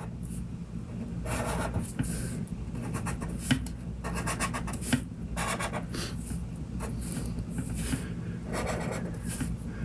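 Pen strokes scratching across paper while lines are drawn, in short repeated strokes with pauses between them, over a steady low hum.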